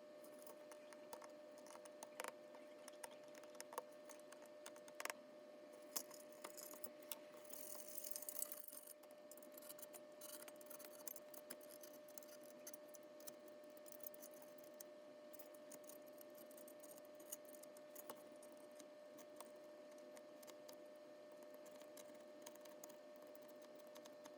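Faint, scattered small clicks and ticks of hand tools working on a laptop keyboard's rivets, coming thicker for a few seconds before the middle and then sparse, over a faint steady tone.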